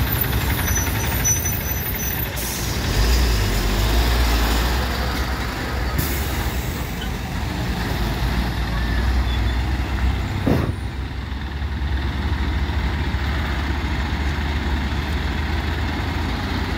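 Heavy diesel tipper truck driving slowly past with a deep engine rumble, after an auto-rickshaw has gone by. A single brief, sharp sound comes about ten and a half seconds in, and the rumble continues more quietly afterwards.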